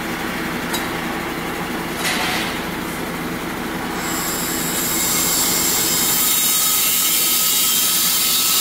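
High-pressure nitrogen hissing through the lines as the fire truck's gas cylinder valve is slowly opened. The hiss swells about four to five seconds in and holds steady over a low mechanical hum, with a couple of brief knocks early on.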